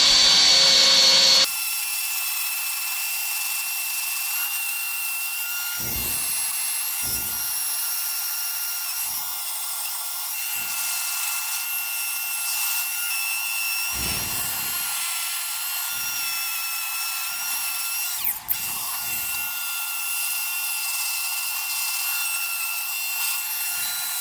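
Power drill spinning a wire brush steadily against rusty metal, scouring the rust off, with a continuous whine. About a second and a half in, the sound abruptly turns thinner and quieter.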